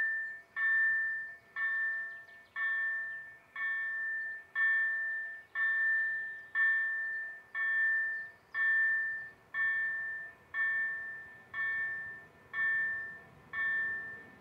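Level crossing warning bell ringing at a steady pace of about one strike a second, each strike ringing out and fading before the next: the signal that the crossing is closed for an approaching train.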